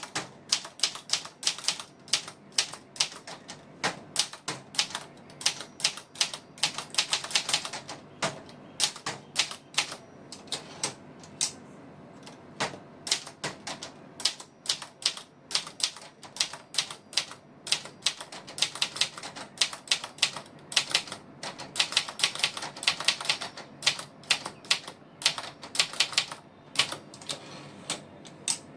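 Brother portable manual typewriter being typed on: quick runs of sharp key strikes with short pauses between bursts.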